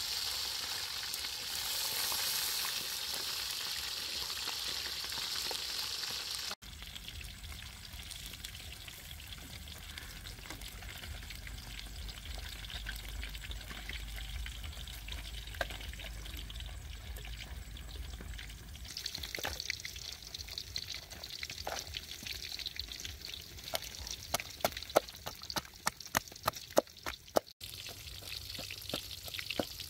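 Whole fish deep-frying in hot oil in a wok: a steady sizzle, with sharp pops and crackles that come thick and fast in the second half.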